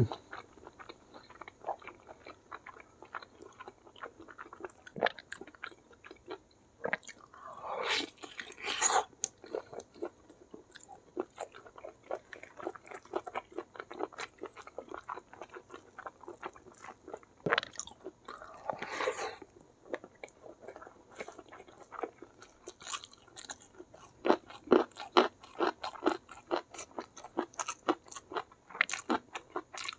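Close-up mukbang eating sounds: wet chewing and lip smacks with small crunches as soft, gelatinous gulai tunjang and rice are eaten by hand. The chewing clicks grow louder and denser near the end.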